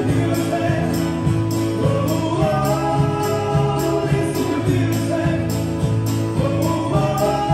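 Pop-folk band playing live: acoustic guitar, electric bass and keyboard, with a jingling percussion beat about twice a second. Male voices sing a melody from about two seconds in.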